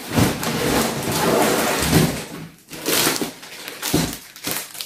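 A large cardboard box being handled as a toy dollhouse is pulled out of it: irregular scraping and rustling of cardboard with several sharp knocks.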